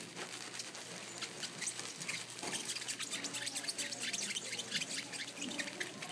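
Hands squeezing and pressing a wet wool felt lump while laying loose fibres onto it: a dense, irregular run of small wet crackles and clicks.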